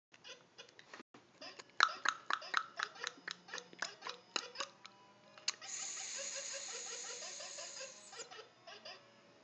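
A toddler laughing in a quick run of short bursts, a few a second. A little later comes a steady hissing sound with faint notes beneath it, lasting about three seconds.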